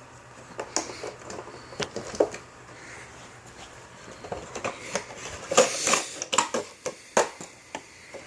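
Hands opening a product package: scattered clicks, taps and rustling, busiest a little past the middle.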